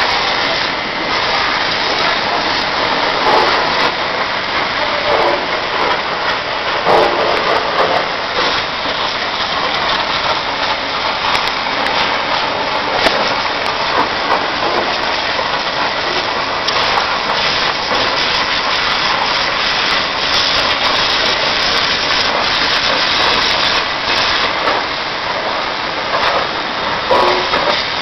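High-pressure water jet from a Cleantec Quiky 10/100 pressure washer hissing and spattering against a backhoe loader's bodywork, a steady loud rush of spray that swells and dips slightly as the lance moves.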